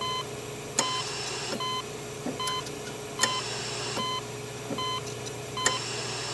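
Short electronic beeps repeating about once every 0.8 seconds over a steady low hum. Every two and a half seconds or so a sharp click sounds, followed by a brief burst of high hiss.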